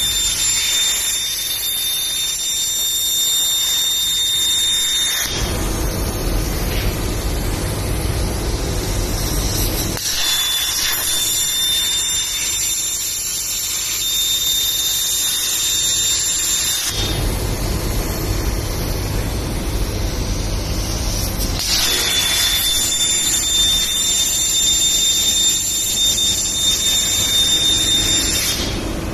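Hypertherm HPR260XD plasma torch cutting metal plate on a CNC table, in three cuts of about six seconds each. Each cut is a hissing screech with a steady high whistle that starts and stops abruptly. Between the cuts a lower rumble fills the gaps.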